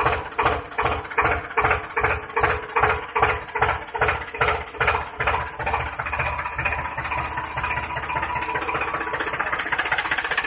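Tractor engine chugging at about three beats a second, then running faster and smoother from about six seconds in.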